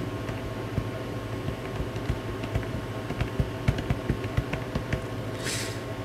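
Typing on a full-sized, fully flexible rubber keyboard: a run of soft, irregular key taps, quickest in the middle.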